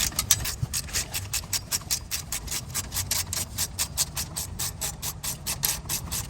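13 mm ratchet clicking rapidly and evenly, about six clicks a second, as a brake caliper bolt is backed out after being broken loose.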